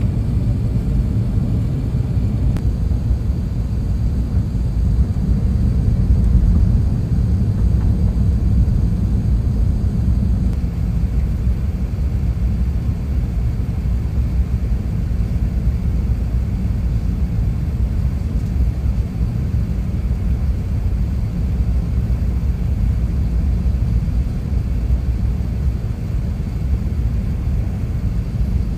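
Airbus A380 cabin noise at a window seat over the wing: a steady low rumble of engines and airflow as the airliner descends toward landing.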